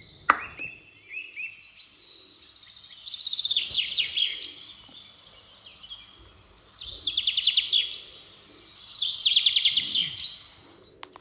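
A small bird chirping in quick high trills, in three or four bursts with short chirps between them. There is one sharp tap just after the start.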